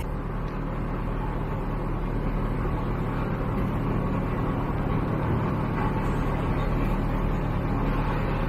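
An engine running steadily under way, a constant low hum with a rushing noise over it, growing slightly louder.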